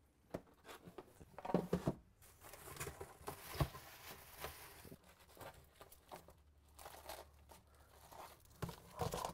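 Faint rustling and crinkling handling noise with scattered small clicks and taps, irregular throughout, with a louder flurry about one and a half seconds in and another near the end.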